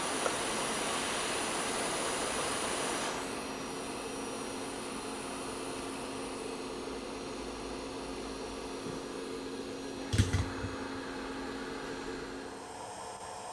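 JBC hot-air rework station blowing a steady hiss of hot air onto an FPC connector to reflow its solder. The airflow falls away about three seconds in, leaving a quieter steady hum with a low tone that stops near the end. A brief clatter comes about ten seconds in.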